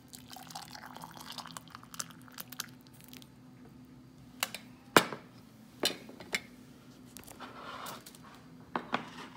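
Hot oatmeal and milk poured from a metal saucepan into a ceramic mug, a soft liquid pour for the first few seconds. Then several sharp clinks of the pot and a metal spoon, the loudest about five seconds in, two more close together near the end.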